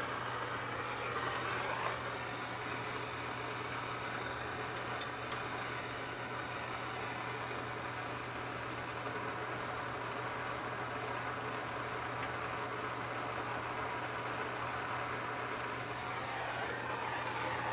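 Plumber's hand soldering torch hissing steadily as its flame heats a copper pipe joint to solder a brace in place, with two faint clicks about five seconds in.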